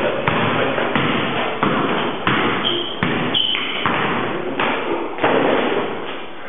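Basketball dribbled hard on a concrete floor, a run of sharp bounces about every two-thirds of a second, with two short high sneaker squeaks near the middle.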